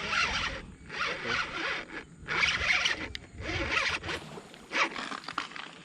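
Yumoshi XF4000 spinning reel working in short, zipping bursts with brief pauses while a hooked fish is played.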